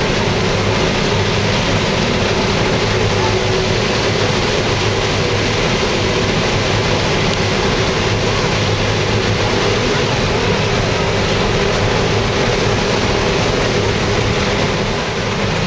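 Combine harvester running steadily while harvesting standing corn: a constant machine drone with a steady hum under a broad rushing noise.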